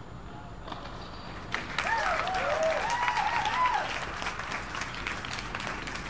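A small group of spectators clapping as a tennis point is won, starting about a second and a half in, with a voice calling out over the first couple of seconds of the clapping.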